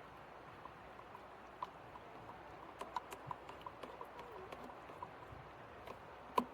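AeroPress stirring paddle tapping lightly and irregularly against the inside of the plastic brew chamber as coffee grounds and hot water are mixed. Right at the end the stirring quickens into a fast run of louder clinks.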